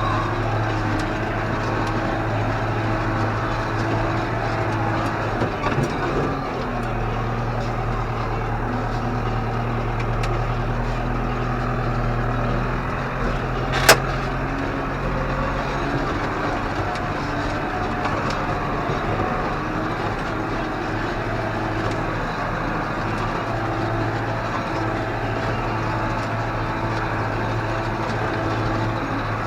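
Tractor engine running steadily while pulling a field roller across ploughed ground. Its note drops lower a few seconds in and slowly climbs back about ten seconds later, with one sharp click near the middle.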